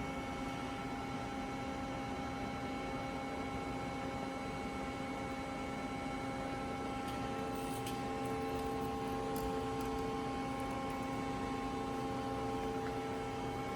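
Steady machine hum with several steady tones, from a 1989 Mori Seiki ZL-25 twin-turret CNC lathe under power. A further tone joins about seven and a half seconds in, with a few faint clicks around then.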